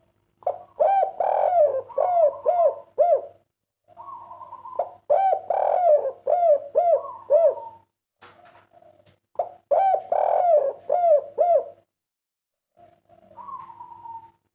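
Spotted dove (derkuku) of the 'kuk 3' type cooing: three phrases, each a few longer coos followed by a quick run of short rounded coos.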